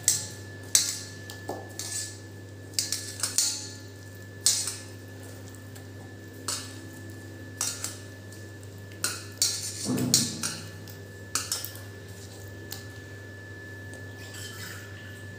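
Raw chicken drumsticks being mixed by hand with marinade in a stainless steel bowl: irregular knocks and clinks of meat and hand against the steel, thinning out near the end, over a faint steady hum.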